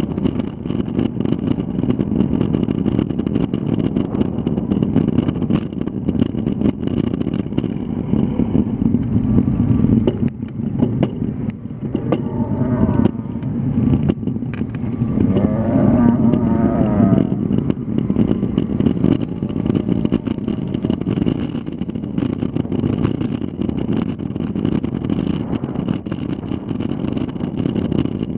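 Motor vehicle engine running steadily with road noise. A wavering pitched call rises over it briefly about 12 seconds in, and again for a second or two around 16 seconds.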